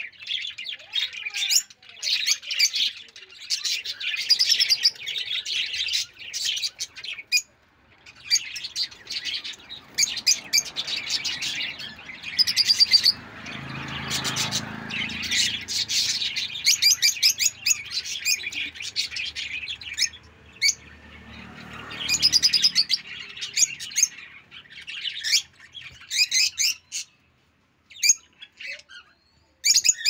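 A flock of lovebirds, rosy-faced lovebirds among them, chirping in rapid, high-pitched bouts, with short pauses now and then.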